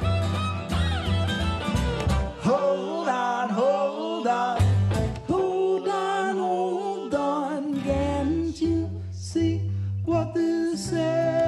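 Live acoustic folk-rock band playing: bowed fiddle, strummed acoustic guitar and plucked upright double bass.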